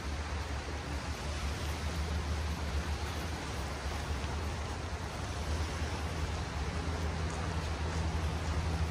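Steady outdoor background noise: an even hiss with a low droning hum beneath it, and a few faint clicks.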